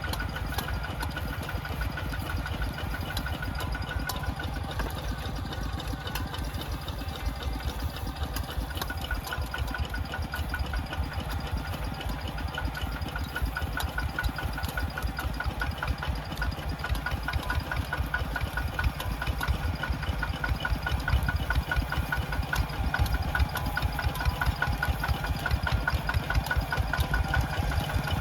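Small farm tractor's engine running steadily with a rapid pulsing beat, getting somewhat louder in the second half.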